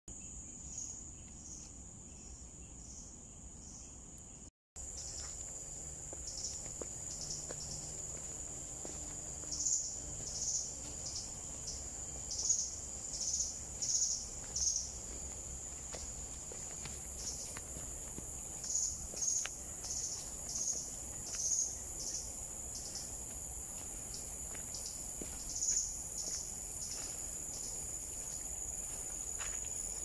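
Tropical forest insects shrilling in a steady high-pitched drone, with short louder pulses repeating about once a second between roughly ten and twenty-six seconds in. The sound cuts out briefly about four and a half seconds in.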